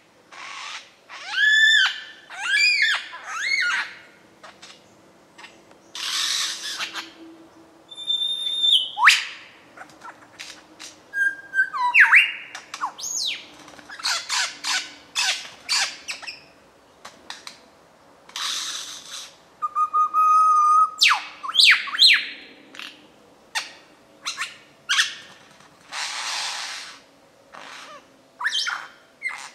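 Male superb lyrebird singing a varied run of mimicked calls, part of his repertoire. It moves through repeated arched whistles, fast rising and falling sweeps, a held whistle and short harsh bursts, one after another with brief pauses.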